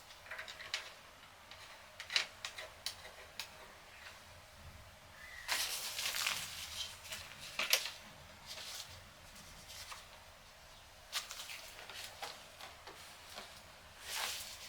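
Handling noises of monitor parts and packaging: scattered light clicks and taps, with a stretch of rustling about five and a half seconds in.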